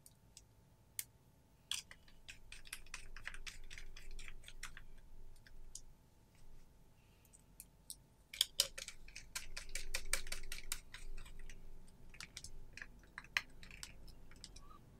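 Quick trains of small clicks and scrapes from hands handling an airsoft pistol slide and its plastic optic mount, in two spells with a lull in between.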